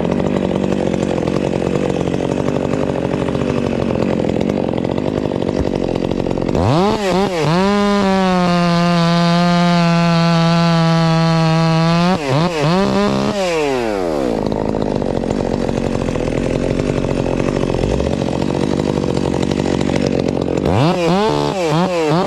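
Chainsaw throttled up to full speed and held steady for about five seconds, then revved up and down and let back to idle. It revs again in quick surges near the end, over a steady engine drone.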